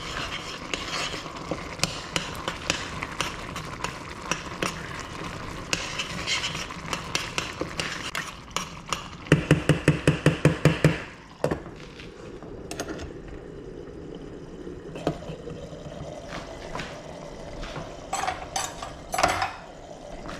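A metal spoon stirring simmering sauce in a stainless steel saucepan, with many light clinks and scrapes against the pan. About halfway in, a fast run of louder clinks lasts about two seconds, and a few louder knocks come near the end.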